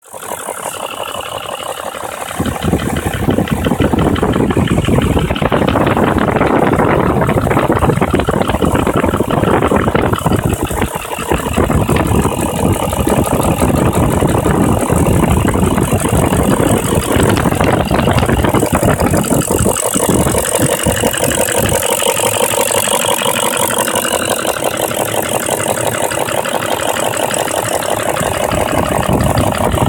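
BMW engine running with a fast metallic rattle from its VANOS variable valve timing unit, which the owner takes for VANOS knock. It gets louder about two seconds in and then runs steadily.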